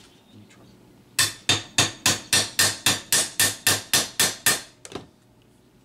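A steel hammer mashing the end of a copper rivet through a brass plate against a steel block: a quick, even run of about a dozen sharp blows, about four a second, followed by one lighter tap. This is the rivet being set flat, one hand-peened rivet completed.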